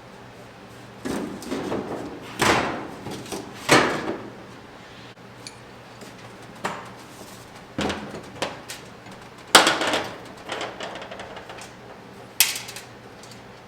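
Irregular knocks and clanks of sheet-metal truck-bed panels being handled and fitted, about ten separate bangs with pauses between, some ringing briefly.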